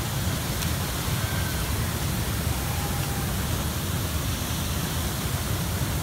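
Steady rushing of the Nafakhum waterfall pouring over a rock ledge into its pool: an even wash of water noise, heaviest in the low rumble.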